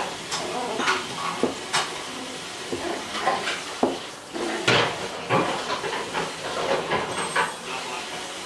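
Irregular clicks, knocks and light clatter as a toy poodle puppy moves about a wire playpen with a toy, over a steady background hiss. The loudest knock comes a little past halfway.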